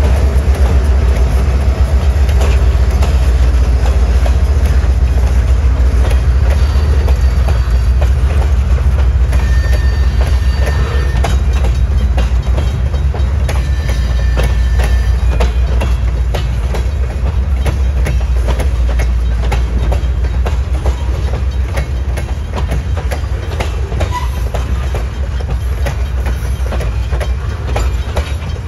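Freight train rolling past at close range: a Canadian Pacific diesel locomotive goes by at the start, then a long string of tank cars, with a steady low rumble and the regular clickety-clack of wheels over rail joints. The rumble eases a little in the second half.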